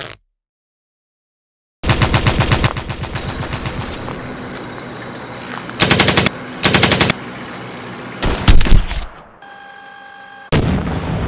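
Gunfire sound effects: after a silent gap, rapid machine-gun fire starts, with several louder bursts of shots through the middle. Near the end the shooting drops away to a brief steady tone, then one more burst that fades out.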